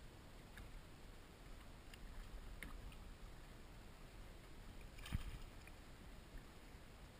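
Sea water lapping against a plastic kayak hull under a low rumble, with a few faint ticks and a single knock about five seconds in.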